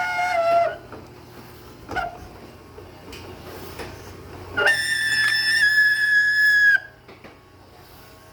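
Martin garage door opener running with a loud, whistle-like squeal from inside the unit, in two spells: one that stops under a second in, and a higher-pitched one from about four and a half to seven seconds, with a few clicks between. The squeal persists despite freshly sprayed silicone lubricant.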